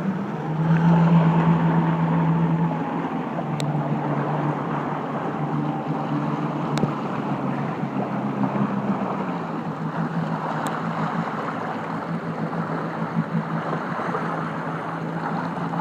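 Jet ski engine running steadily on the water, a low hum over rushing water and wind on the microphone, louder for a couple of seconds near the start.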